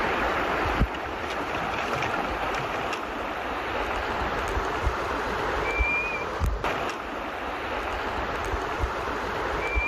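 Steady rush of flowing river water, with scattered low thumps and a few clicks. A short high chirp comes about six seconds in and again at the end.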